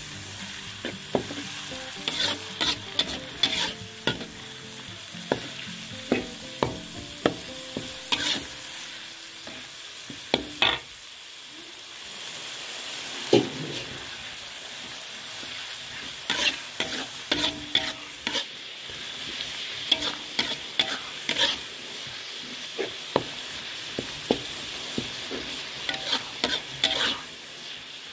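Ground chili-and-shallot spice paste sizzling in oil in a pan, being sautéed until fragrant, while a metal spatula stirs it, scraping and knocking against the pan in quick irregular strokes. The strokes thin out for a few seconds around the middle.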